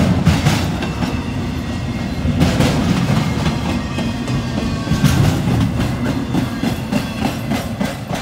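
Double-stack intermodal freight train rolling past, a steady heavy rumble of well cars with repeated wheel clacks over the rail joints. The sound starts to fade near the end as the last car goes by.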